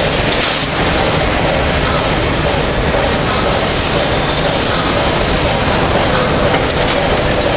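Steady, loud din of industrial processing machinery running together on a factory floor, an even mechanical noise with no break or clear rhythm.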